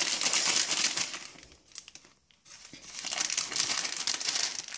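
Chocolate wrapper crinkling as it is unwrapped by hand, in two spells with a short quiet pause about halfway through.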